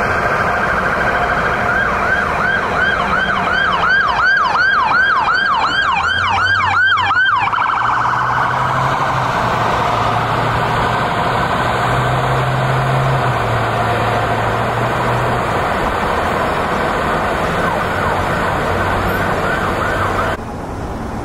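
Ambulance electronic siren on a wail that switches for about five seconds to a fast yelp, about three sweeps a second, then goes back to the wail, with a low drone underneath for several seconds. The siren cuts off shortly before the end.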